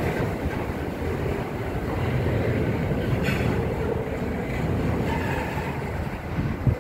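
Double-stack intermodal freight train's well cars rolling past on the rails, a steady rumble and rattle of wheels and loaded cars. A brief sharp clack comes about halfway through and a short knock near the end.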